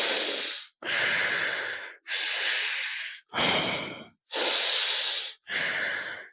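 Audible nasal breathing for alternate-nostril pranayama, with one nostril closed and the air drawn in and pushed out through the other. About six breaths in and out follow one another, each lasting roughly a second, with short breaks between them.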